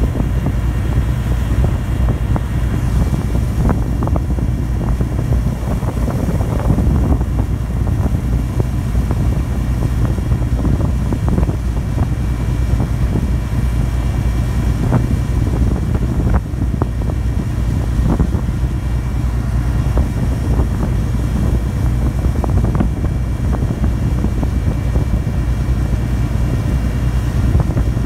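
Steady low drone of a ferry's diesel engines running underway, with wind noise over it.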